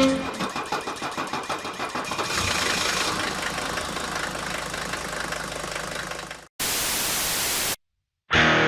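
Mercedes W126 diesel engine running rough and uneven just after a cold start, pulsing irregularly as it misfires and shakes. About six and a half seconds in it cuts off into roughly a second of even static hiss, then a brief silence.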